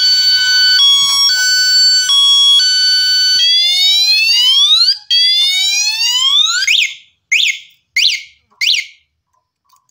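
Electric bicycle's anti-theft alarm sounding: a two-tone warble switching about every half second, then two rising whoops, then three short chirps before it cuts off about nine seconds in. The alarm is very sensitive and goes off at the slightest knock.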